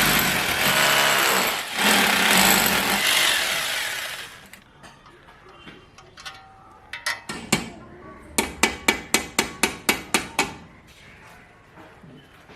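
Hammer drill boring into a masonry wall for the anchor bolts of an AC outdoor-unit stand, running loudly for about four seconds and then stopping. A few seconds later comes a quick run of about a dozen hammer blows, roughly five a second, as the anchors are driven in.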